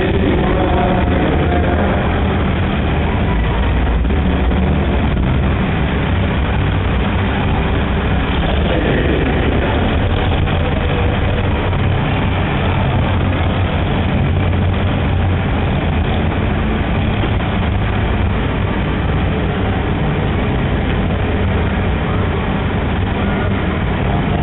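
Several vintage farm tractor engines running together at low speed, a steady low rumble.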